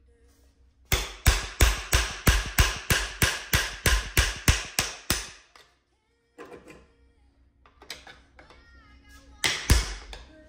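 Rapid hammer blows on metal, about three a second for some four seconds, then two more blows near the end: knocking the old wear ring out of a Sea-Doo 787 jet pump housing.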